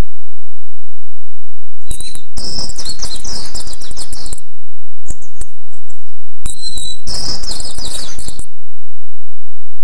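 Coucal chicks calling with high, harsh chirps in two loud bursts of about two seconds each, the first about two seconds in and the second about six and a half seconds in, with fainter scattered chirps between them.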